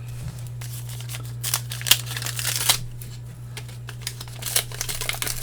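Trading cards being handled and flipped through: short swishes and flicks of card stock sliding against card stock, in uneven clusters over a steady low hum.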